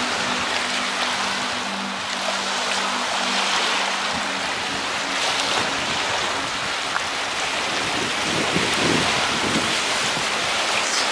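Lake waves washing on the shore, a steady rushing that swells and eases every second or two, with some wind on the microphone. A faint low hum of two steady tones stops about four seconds in.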